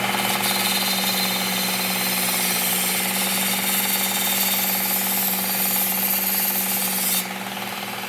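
Work Sharp Ken Onion Elite belt sharpener running with a steady motor hum while its abrasive belt grinds the steel edge of a mulching mower blade, a high hiss over the hum. The grinding hiss cuts off about seven seconds in, when the blade comes off the belt, and the motor keeps running.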